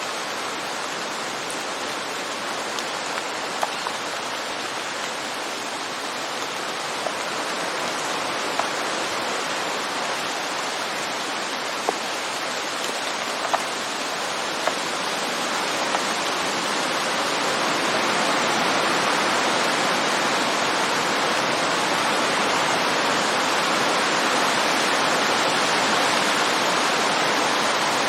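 Heavy rain falling on woodland leaves: a dense, steady hiss that grows louder about two-thirds of the way through, with scattered sharp drips of water striking wood, most of them in the first half.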